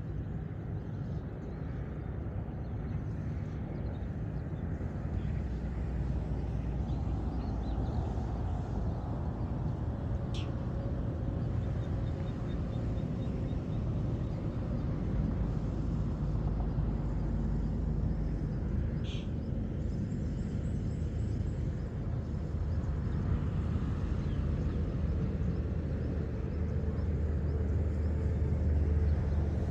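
Steady low rumble with a few short, sharp high bird calls, about ten and nineteen seconds in, and faint high twittering between them.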